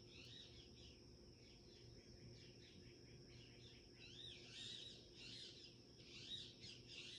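Faint chattering of mynas: short, arched chirps repeated several times a second, growing a little busier and louder about four seconds in.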